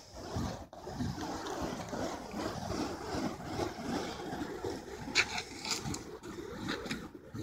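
Burning fire poi whooshing through the air as they are spun, an uneven rushing noise that swells and falls, with a few short hissing flares about five seconds in.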